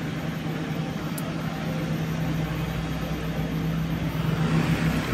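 Heavy diesel engine of a Cometto girder transporter running steadily, a constant low hum under an even wash of noise.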